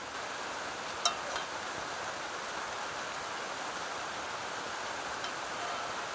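Steady hiss of rain falling, with a single sharp knock about a second in.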